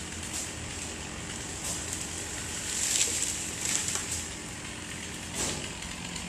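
An engine running steadily, with short high hissing bursts about every second.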